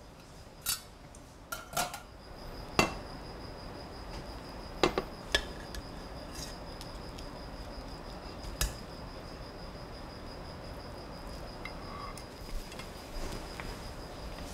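Metal tongs clinking against a stainless steel pot as pieces of steak are lifted out of cooked rice: a handful of sharp, separate clinks over the first nine seconds, with a faint steady high whine underneath.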